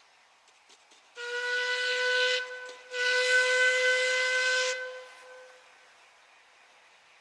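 Steam whistle of a small industrial tank locomotive sounding two blasts, a short one and then a longer one that trails off.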